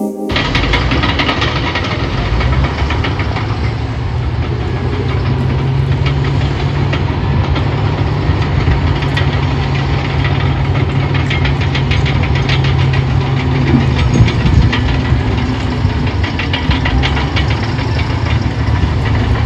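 Road roller (compactor) engine running steadily with a low hum and a fast, dense rattling knock throughout.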